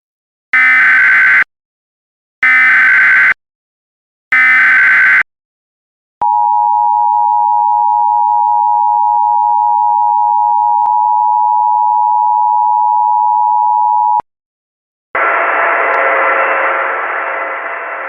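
Emergency Alert System header: three short bursts of SAME data tones, about a second each, then the two-tone attention signal (853 and 960 Hz) held steady for about eight seconds. The tone cuts off, and a second later a band of hissing static starts, with faint steady tones in it.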